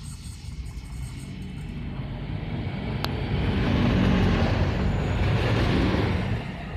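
ČD Regio Spider diesel railcar passing close by: its engine and running gear rumble louder as it approaches, peak for about two seconds as it goes past, then fall away near the end. A single sharp click sounds about three seconds in.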